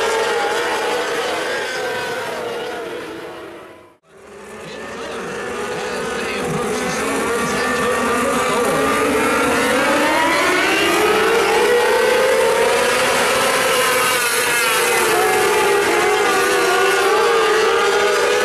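A pack of micro sprint cars' 600cc motorcycle engines running at racing speed, their pitch rising and falling as they go down the straights and through the turns. The sound fades out completely about four seconds in and then fades back up.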